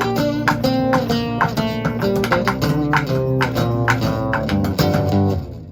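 Live rock band playing an instrumental passage, guitar and bass over a steady beat of percussion hits, which stops sharply together just before the end as the song finishes.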